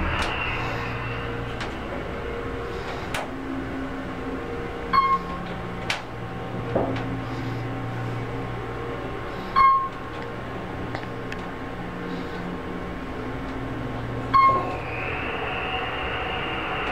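Otis Series 1 hydraulic elevator car travelling upward, heard from inside the cab as a steady hum. Three short electronic chimes sound a few seconds apart as it passes floors.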